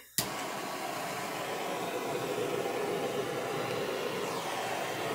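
Handheld butane torch clicking alight about a fifth of a second in, then burning with a steady rushing sound as it is played over wet epoxy resin to pop surface bubbles.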